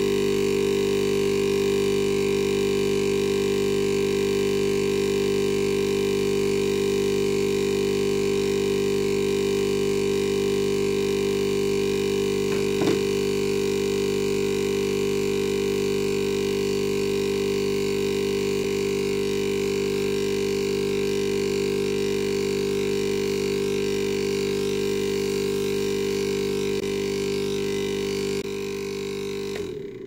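Hermetic refrigerator compressor, single-piston, with its shell cut open, running on direct mains power: a loud, steady, noisy hum as the piston keeps compressing and pumping out air. It is switched off near the end and dies away over a couple of seconds.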